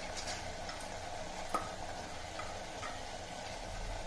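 Vegetables and dal cooking in a steel pot on the stove, a steady low sizzle with a few faint ticks, and a light metal clink about one and a half seconds in.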